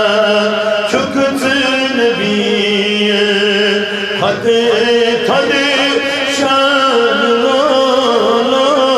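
A man singing a naat, an Islamic devotional poem, solo into a microphone, with long held, wavering notes.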